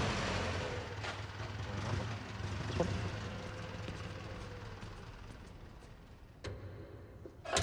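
Forklift's propane engine idling, a low steady hum that fades away. Near the end there is a sharp metallic click as a tank hatch latch is worked.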